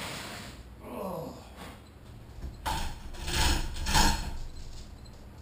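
Steel hand chain of an overhead chain hoist rattling and clinking as it is grabbed and pulled, in a few loud bursts a little past the middle.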